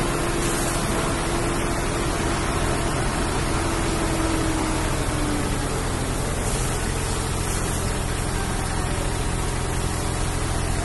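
Dump truck on fire: a steady rushing hiss with a low rumble underneath, and a faint steady tone that fades out about five seconds in.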